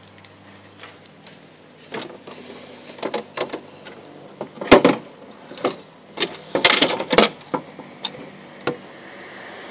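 A series of irregular sharp clicks and knocks, like parts or tools being handled, over a low steady hum. The loudest knock comes about five seconds in, with a quick cluster of them a couple of seconds later.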